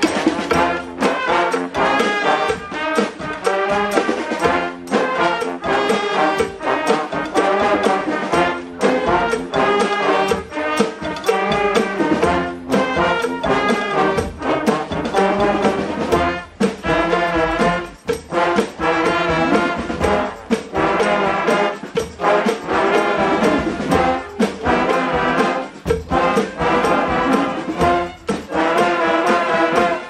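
A street brass band playing: trombones and trumpets over a sousaphone and drums, with a steady drum beat.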